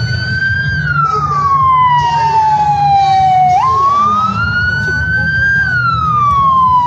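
A siren wailing, its pitch rising and falling slowly twice, over a low rumble.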